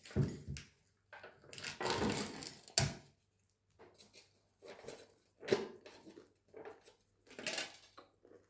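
A pretzel being ripped apart and handled: a string of short rustling, tearing bursts, with a sharp knock about three seconds in.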